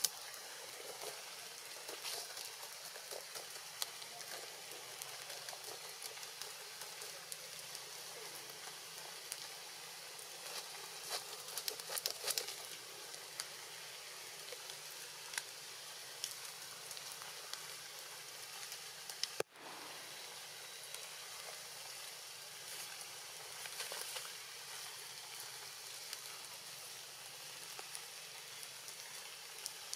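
Steady rain falling on forest foliage: a fine, even hiss sprinkled with small drop ticks. The sound drops out briefly about two-thirds of the way through.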